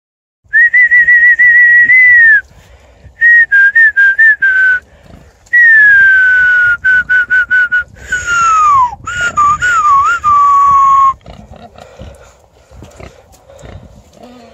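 A person whistling loudly, apparently calling the pigs, in several phrases: first a warbling trill held near one pitch, then notes that glide downward and short repeated chirps. The whistling stops about eleven seconds in, leaving only faint scuffling noise.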